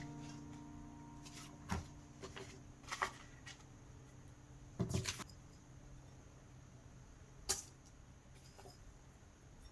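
A few short, light clicks and knocks of kitchen utensils and bowls during baking preparation, spaced a second or two apart, with a cluster about five seconds in. Held piano notes fade out at the start.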